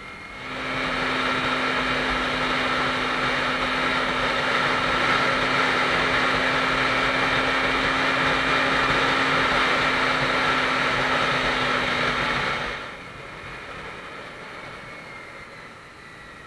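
Motorcycle riding at a steady cruising speed: engine drone and wind rush come up sharply about half a second in, hold steady at an even pitch, then drop back about two-thirds of the way through.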